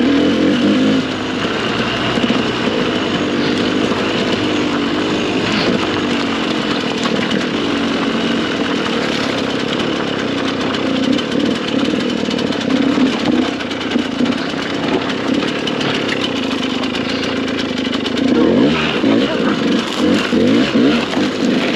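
Dirt bike engine running at low speed over rough ground, with several throttle blips rising and falling in pitch near the end.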